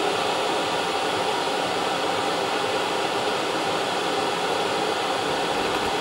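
Steady, even running noise of an Autoterm 4 kW diesel air heater, holding level with no change.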